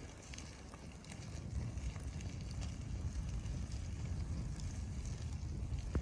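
Blizzard wind buffeting the microphone, a gusting low rumble that grows stronger about a second in, with faint scattered ticks above it.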